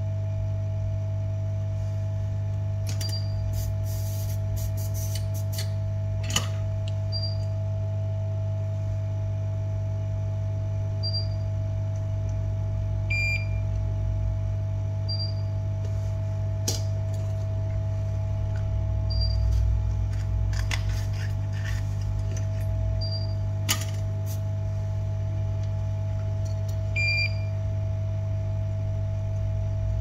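Electronic bench equipment humming steadily, with a short high beep repeating about every four seconds and a lower beep twice. A few sharp clicks of small tools come through.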